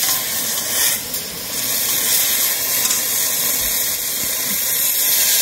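Steady hiss of a pot of vegetables cooking over a portable gas stove, with a brief dip about a second in.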